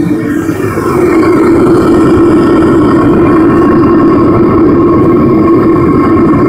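Propane burner firing into a small furnace: a loud, steady rush of burning gas that grows louder about a second in and then holds steady.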